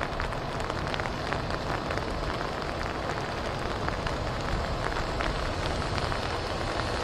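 Steady rain falling, with many small ticks of drops striking a surface close to the microphone.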